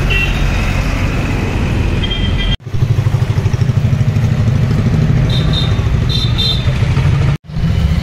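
Steady low rumble of street traffic with an idling motorcycle engine, dropping out abruptly twice.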